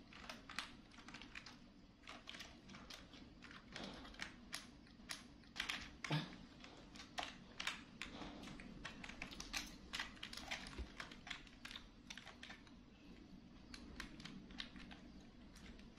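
A monkey pressing and tapping the keys of a computer keyboard with its fingers: faint, irregular key clicks, a few a second, with short gaps.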